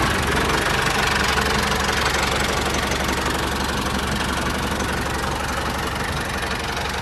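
Small mini-tractor engine idling with a fast, even knocking beat, just after starting.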